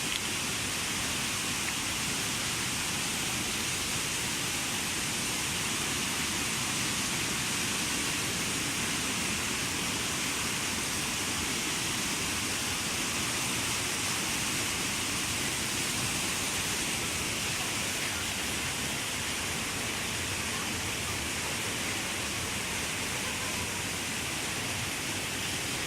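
Waterfall: the steady rush of falling water, even and unbroken throughout.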